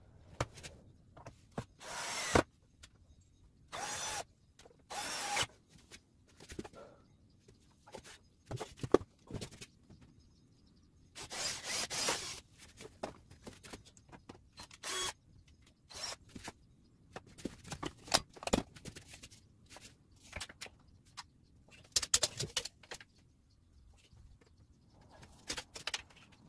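Power drill run in short bursts of under a second, with one longer run of about a second and a half midway, and scattered knocks and clicks of handling and fitting in between, during sink cabinet assembly in a bus camper conversion.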